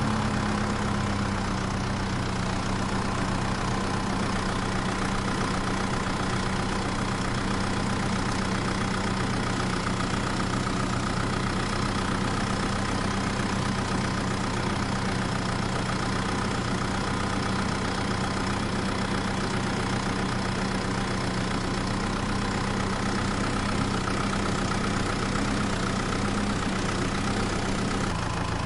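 Steady idling truck engine hum that dips slightly in pitch about a second in and holds even from there on.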